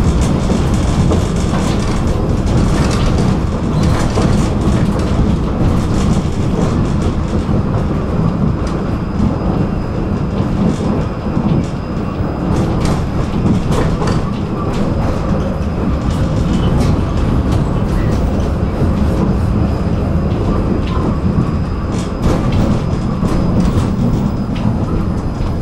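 Tram running along the track: a steady rumble of wheels on rails, with scattered clicks as it passes rail joints and a faint thin high whine.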